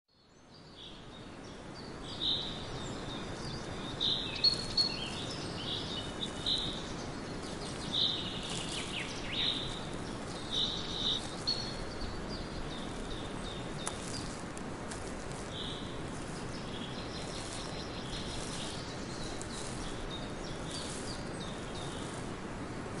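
Forest birds calling in short, bright chirps, thickest in the first two-thirds and sparser after, over a steady background hiss of outdoor noise. The sound fades in over the first second or two.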